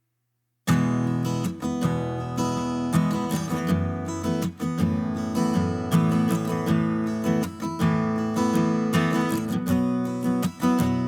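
Background music led by strummed acoustic guitar, starting abruptly just under a second in after a moment of silence.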